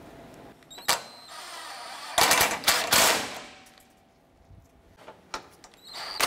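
Hand socket ratchet clicking as it tightens the bumper impact absorber's mounting bolts, with its loudest run of rapid clicks about two to three seconds in and a few single clicks later. A cordless ratchet starts up right at the end.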